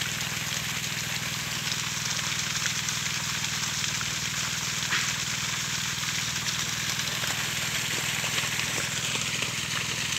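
Steady outdoor hiss with a low, even hum underneath, and a faint click about halfway through.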